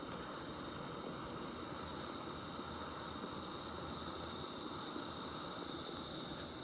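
Portable camp stove burner hissing steadily under the coffee pot.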